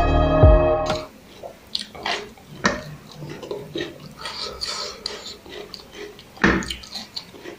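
Background music cuts off about a second in, then close-up eating sounds: fingers mixing and scooping rice on a steel plate, with wet mouth and chewing sounds. A louder thump comes about six and a half seconds in.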